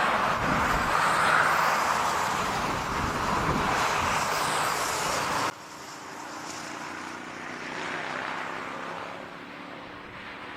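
Jet airliner landing, its engines heard as a loud steady rushing roar that cuts off abruptly about halfway through. After the cut, a much quieter steady background noise with a faint low hum remains.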